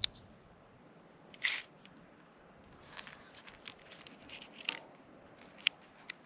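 Light handling noises: a sharp click at the start, a louder rustle about a second and a half in, then scattered small clicks, taps and crinkles.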